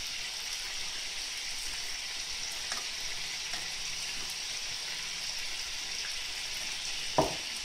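Stuffed peppers sizzling steadily as they fry in oil in a frying pan, with a single knock near the end.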